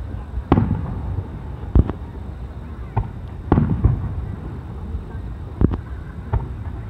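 Aerial fireworks shells booming, about six irregularly spaced bangs, each trailing off in a low rolling echo.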